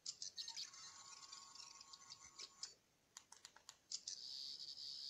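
Toy sonic screwdriver (the 14th Doctor's) playing its high-pitched electronic sound effect through its small speaker, in two bursts: one lasting about two and a half seconds, then a second starting about four seconds in. In between come several sharp clicks from its buttons.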